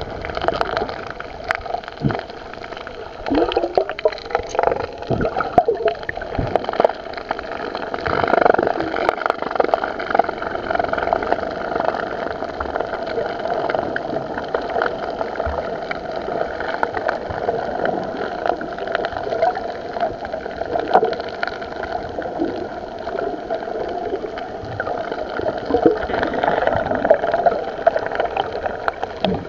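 Underwater sound from a submerged camera: muffled gurgling and sloshing water over a steady mechanical hum, with scattered small clicks and a few louder swells.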